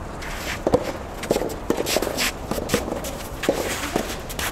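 Soft tennis doubles rally: players' quick footsteps and shuffling on the court, with sharp, irregular knocks from racket strikes on the soft rubber ball.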